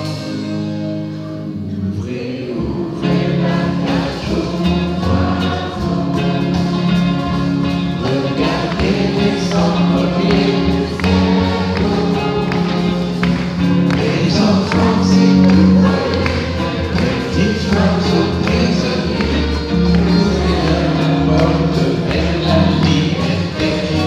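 A live band with drums, electric guitar and double bass plays a French chanson chorus while many voices sing together like a choir, the audience singing along. The full band swells in about three seconds in.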